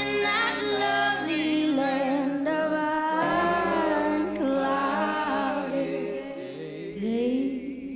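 Background music: a song with a sung vocal line over steady sustained accompaniment.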